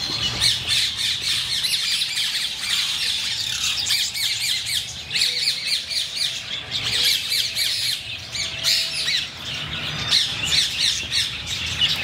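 A flock of small aviary birds chirping and squawking together, a dense, steady chatter of short high notes.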